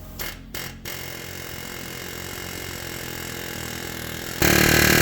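A power tool working the old lower ball joint out of a steering knuckle: two short bursts about a second in, then a loud, steady run of about a second and a half starting near the end.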